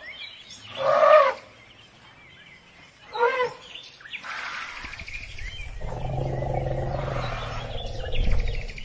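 Elephant calls: a loud trumpeting call about a second in and a shorter one around three seconds, then a long low call from about five seconds on. Birds chirp faintly in the background.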